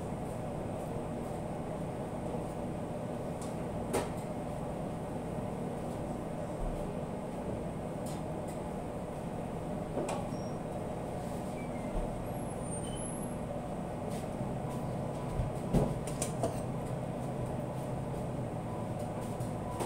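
Steady machinery hum of commercial kitchen equipment, with a few light knocks from bamboo skewers and meat handled on a metal tray, several close together about fifteen to sixteen seconds in.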